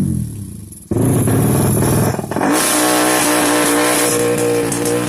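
Tuned drag-race motorcycle engines being revved: a rev dies away, a loud burst of throttle comes in about a second in, and the engine is then held at a steady high pitch.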